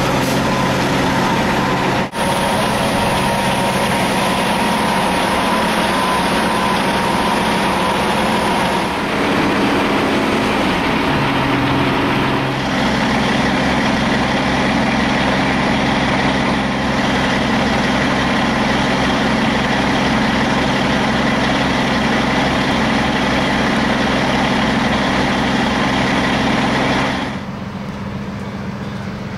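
A heavy engine running steadily with a low, even hum. Its pitch slides down around ten seconds in, and the sound drops abruptly to a quieter level near the end.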